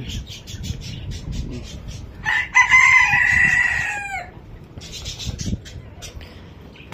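A rooster crowing once: a single call of about two seconds that starts a couple of seconds in and falls away at the end.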